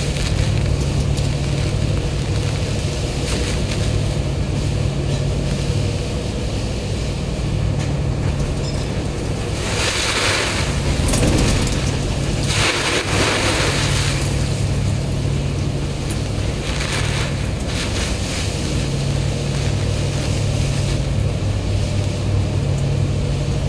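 Ferry's engines running with a steady low drone, heard from inside the cabin while the boat runs into heavy wind and waves. Loud washes of spray sweep over the deck about ten seconds in and again a couple of seconds later, with a smaller one near seventeen seconds.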